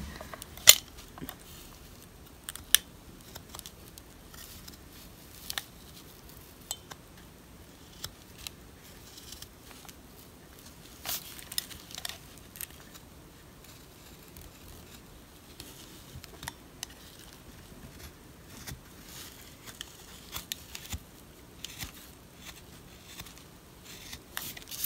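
Utility knife blade carving and shaving a wooden lure body: scattered short scraping cuts and sharp clicks as the blade catches and slices the wood, the loudest a sharp click about a second in.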